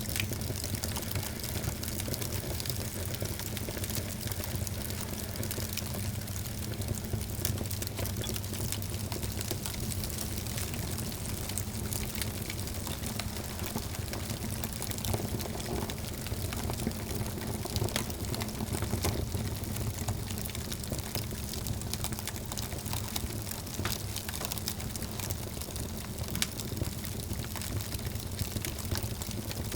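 Wood fire crackling in a fireplace: a steady hissing bed with frequent small, sharp pops and snaps, over a constant low rumble.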